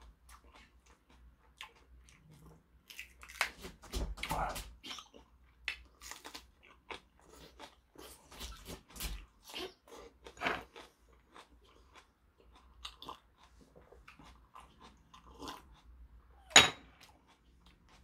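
A person eating close to the microphone: chewing with wet mouth noises and soft crunches, in irregular clusters. One sharp click near the end is the loudest sound.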